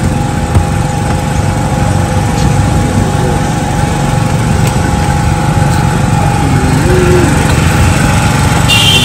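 Small open-frame portable generator engine running steadily with a constant hum. A brief high-pitched tone sounds near the end.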